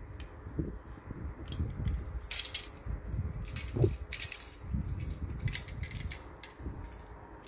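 Fishing rods clicking and clattering against each other as they are put down and picked up, a scatter of short light knocks over low rustling handling noise.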